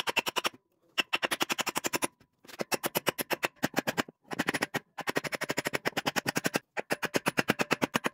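A claw hammer driving nails into a wooden plank: very fast, even strikes, about ten a second, in runs of about a second with short breaks between them.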